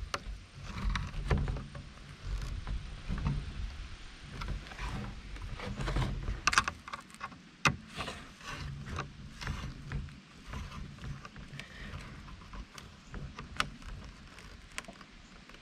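Hand screwdriver tightening the screw of a face-guard clip on a plastic batting helmet: scattered small clicks and taps of metal and plastic, over a low steady rumble.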